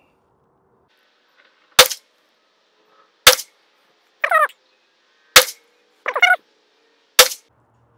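Four shots from a suppressed PSA Jakl 300 Blackout pistol with an 8.5-inch barrel, firing 150-grain Winchester Deer Season XP rounds at about 1,770 fps, spaced roughly one and a half to two seconds apart.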